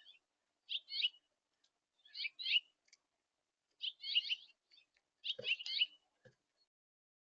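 Small songbird chirping in four short bursts of quick high notes, about one every second and a half. Two faint low knocks sound near the end.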